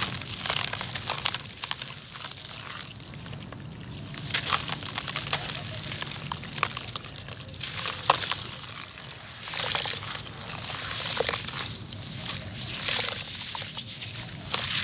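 Hands crushing dry, gritty charcoal-and-cement crumbles so they fall into water, then squeezing the wet mud near the end: irregular crunching and pattering with sloshing squelches.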